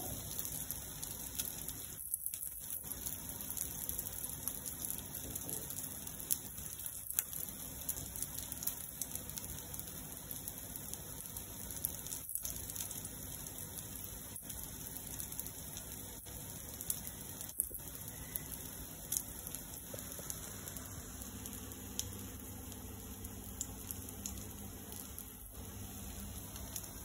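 Quinoa cutlets shallow-frying in a little mustard oil in a non-stick pan: a steady sizzle with light crackling.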